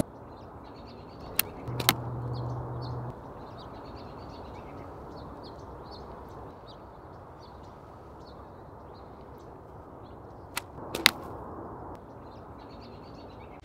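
Two shots from a TOPS Mini Sling steel-frame slingshot. Each is a sharp snap followed about half a second later by a louder crack, one pair a second or so in and the other near the end. Small birds chirp throughout.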